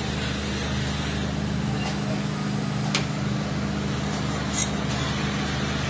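Steady low hum of workshop machinery, with a few sharp metallic clinks as chrome steel fork tubes are handled and knock against each other and the rack.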